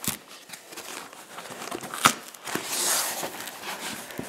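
Plastic wrap and foam packing crinkling and rustling as hands shift them inside a cardboard box, with a sharp snap about two seconds in.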